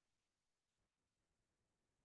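Near silence: a pause between spoken sentences, with only a faint hiss.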